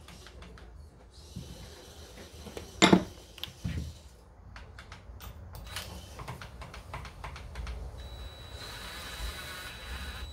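Cordless impact wrench spinning the camshaft bolt down onto the cam sprocket of a Gen 3 392 Hemi, starting about eight seconds in with a steady whir. Before it, a sharp metal clunk near three seconds and a run of light metallic clicks as the parts and tool are handled.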